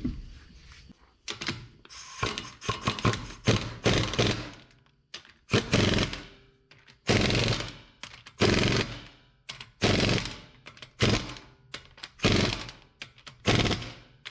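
Impact wrench running lug nuts onto a wheel in short, rattling trigger bursts. There are quick clusters in the first few seconds, then single bursts about once a second as the nuts tighten down.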